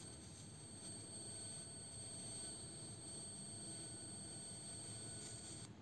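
USB rechargeable electric arc lighter with its arc running: a steady high-pitched electric whine that cuts off suddenly near the end as the arc switches off.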